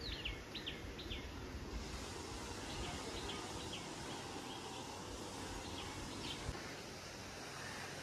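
Birds calling over steady outdoor background noise: a quick run of sharp, repeated falling calls in the first second, then fainter scattered chirps.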